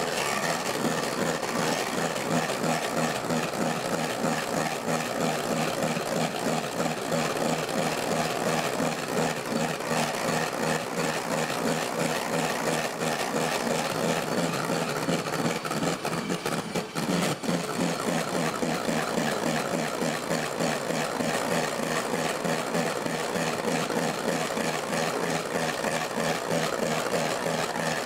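Electric hand mixer running steadily, its twin beaters whipping egg whites and hot sugar syrup in a stainless steel bowl into a stiff meringue.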